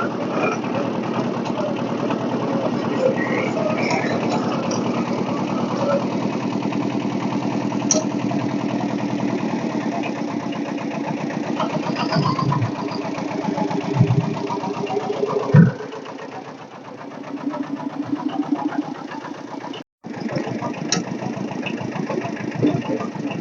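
The little Kubota machine's engine running with a steady, rhythmic chug, with a couple of sharp thumps about two-thirds of the way through, after which the engine sound drops quieter for a few seconds before picking up again.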